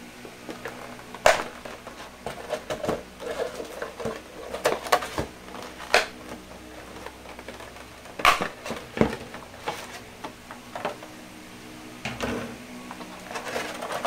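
Clear plastic blister packaging crackling and clicking as it is handled, bent and pulled apart, in irregular sharp crackles with a few louder snaps.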